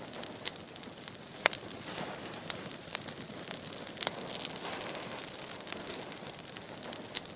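Open fire burning in vegetation: a steady hiss broken by sharp, irregular crackles and pops, the loudest about a second and a half in.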